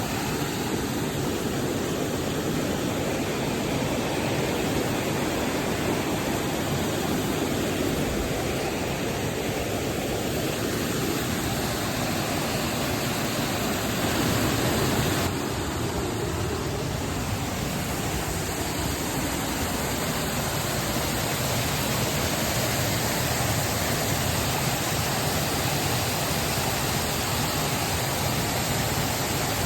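Waterfall rushing steadily, a dense, even wash of falling water with no letup; the sound shifts slightly about halfway through.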